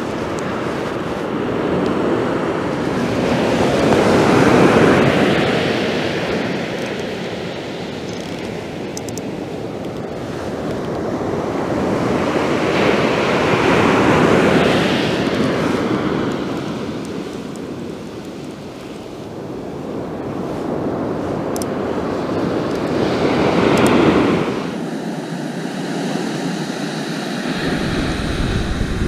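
Sea waves breaking on a sand beach and washing up the shore, the rush swelling and fading three times, about every ten seconds.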